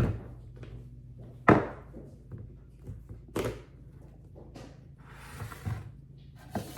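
Kitchen items knocking as they are handled and set down on the counter: a few sharp knocks, the loudest right at the start and about one and a half seconds in, another about three and a half seconds in, with smaller clicks and a brief rustle between.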